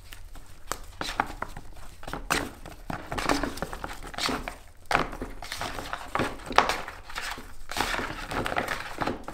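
Hands mixing thin, wet slices of salted zucchini in a plastic bowl: irregular soft squelches and rustles of the slices, with light taps against the bowl.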